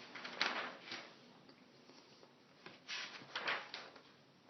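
Brief rustling and handling noises in two short clusters, one about half a second in and another around three seconds in.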